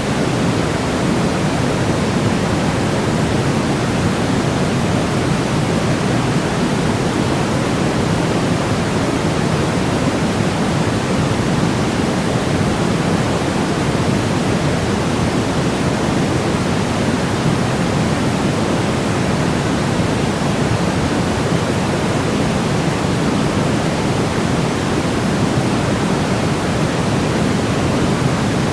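Steady generated white noise: a constant, unchanging hiss, fuller in the low end than the highs, with no tones or breaks.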